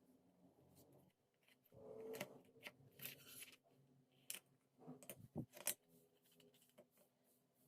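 Faint handling sounds of small parts: a short rustle and scraping about two to three and a half seconds in, then a few sharp clicks a couple of seconds later.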